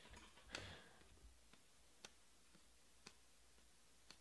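Near silence with faint clicks of glossy trading cards being thumbed off a stack one by one, after a brief rustle of the cards about half a second in.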